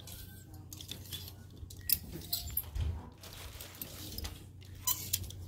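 Clear plastic clothes hangers clicking and scraping against each other and the rack as they are pushed along, with sharp clacks about 2 s in and near the end, over a steady low hum of store background noise.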